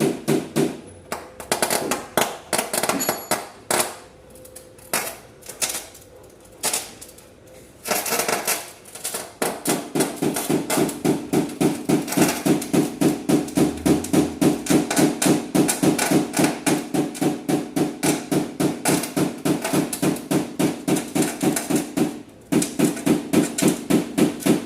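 Paintless dent repair tapping: a small hammer striking a tap-down tool on a car body panel. Scattered taps at first, then from about eight seconds in a steady run of about three taps a second, with a brief pause near the end.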